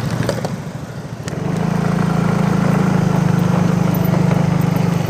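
An engine running, picking up revs about a second and a half in and then holding a steady hum.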